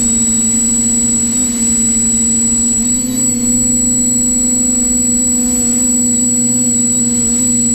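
TBS Discovery Pro quadcopter's motors and propellers buzzing in a steady hover, a loud even hum whose pitch wavers briefly twice as the motors adjust.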